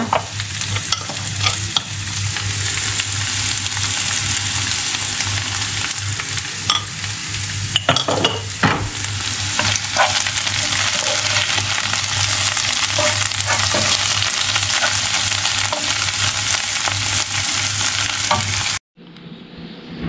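Chopped onions and wild greens sizzling steadily in a frying pan as they are sautéed, with a few scrapes and knocks of a utensil stirring them. The sizzling cuts off abruptly near the end.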